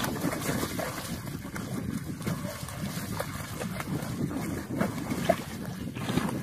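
Shallow water sloshing and trickling, a steady churning noise.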